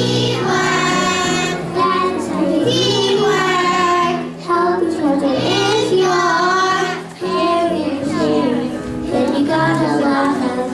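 Children singing a song with musical accompaniment, in sung phrases of about one to two seconds each.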